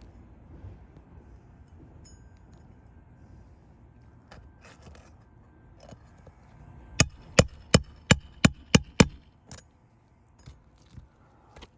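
About seven sharp hammer blows in quick succession, roughly three to four a second, about seven seconds in: a hammer striking a roofing snake to drive a 1.25-inch roofing nail under the shingle into the decking. Faint clicks and scraping of handling come before.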